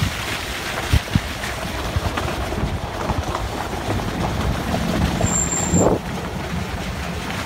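Wind buffeting the phone's microphone over the low, steady running of the Mitsubishi L200 pickup's engine, with a short hum about five seconds in.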